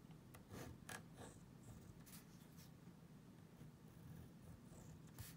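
Faint scratching of a pen drawing on a paper sticky note, a few short strokes, over a quiet room hum.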